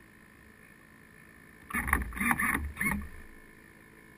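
Small waves slapping against the wooden hull of a radio-controlled racing yacht under sail: a quick run of about five knocks about two seconds in, over a faint steady hum.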